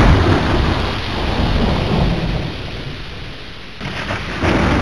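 Thunder rumbling over a steady hiss of rain. A loud rumble at the start dies away, and a second one swells near the end.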